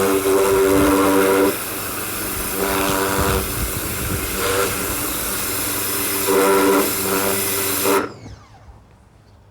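Ryobi 1600 PSI electric pressure washer running and spraying: a steady hiss of the water jet over the motor and pump's hum, which swells and fades several times. It cuts off suddenly about eight seconds in.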